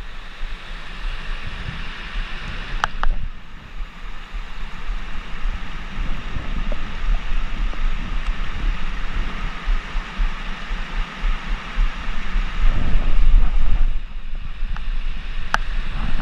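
Blizzard wind buffeting the microphone: a rough, gusting rumble, heaviest around thirteen seconds in, with a couple of faint sharp clicks.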